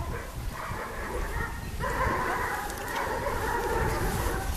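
Dogs barking, thick and continuous from about two seconds in, with a short break near the end, over a low rumble.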